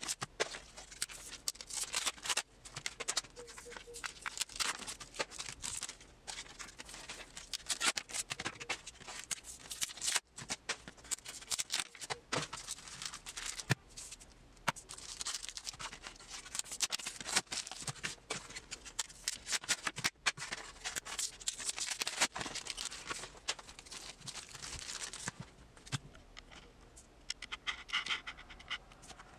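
Plastic blister packaging crackling and clicking as trading-card blister packs are pulled open and handled, in a continuous irregular stream of crinkles and sharp clicks.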